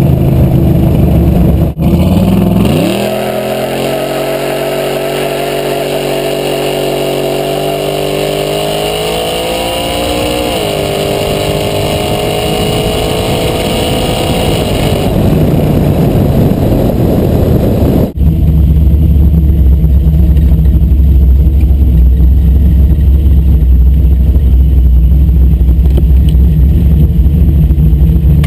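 Small-block 420 V8 of a 1981 Pontiac Trans Am, ~600 hp, running under a hard pull. A loud low rumble gives way near the start to engine pitch climbing steadily for about twelve seconds, then fading into road noise. The loud low rumble returns for the last ten seconds.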